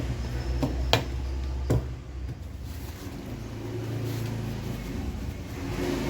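Two sharp clicks, about a second in and again under a second later, over a steady low hum.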